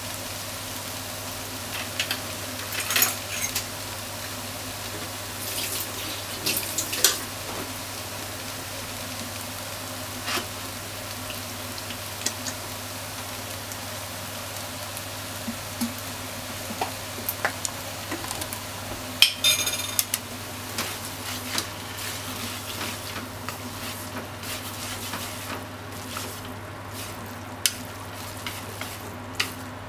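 Pork, onion and soba noodles frying in a frying pan with a soft sizzle. Chopsticks click and tap against the pan now and then, with a denser cluster of clicks about two-thirds of the way through. A steady low hum runs underneath.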